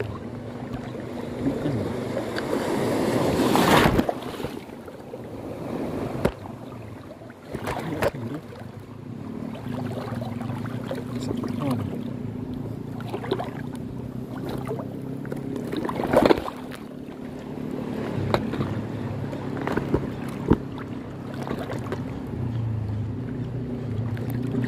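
Wind on the microphone and small waves lapping at the shore, over the steady hum of a Ryobi HPX 1000 spinning reel being cranked as a lure is retrieved. A surge of wind noise builds and cuts off about four seconds in, and a few sharp clicks come later.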